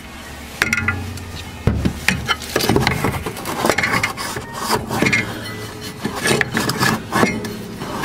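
Hand tools working on a golf cart's metal frame: irregular metallic clanks, knocks and scrapes, starting about half a second in.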